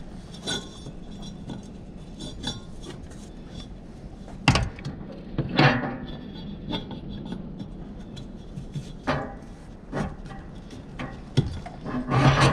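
Metal hand tools clinking and knocking against the mower deck's metal parts while the deck belts are fitted and tightened. There are scattered sharp clinks, with the loudest knocks about four and a half and six seconds in.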